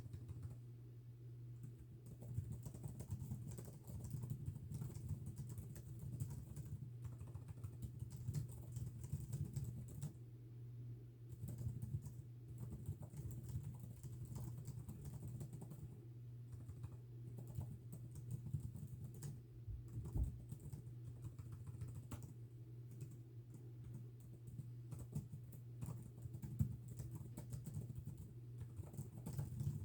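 Computer keyboard being typed on at a steady pace: dense, irregular key clicks with a few short pauses. A steady low hum sits underneath.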